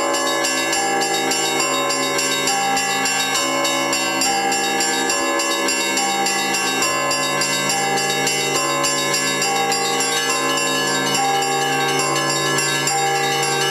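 Festive Russian Orthodox bell ringing on a monastery's bells: small bells struck in quick, even strokes over the steady hum of larger bells, all ringing together without a break.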